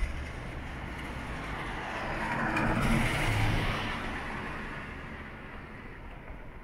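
A car driving past: its tyre and engine noise swells to a peak about three seconds in, then fades away.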